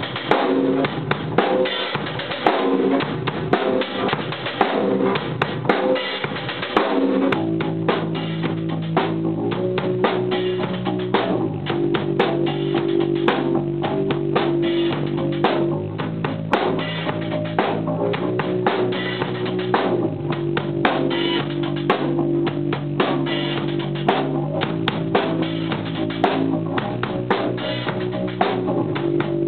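Band music: a drum kit playing alone at first, then bass and guitar coming in about seven seconds in with held notes over the drums.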